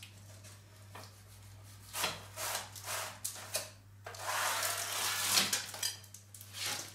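A metal offset spatula scraping and rubbing on baking paper as it works between a set tart and its paper-lined springform base, with a few short strokes. The base then slides out from under the tart in a longer, louder stretch of scraping and paper rustle.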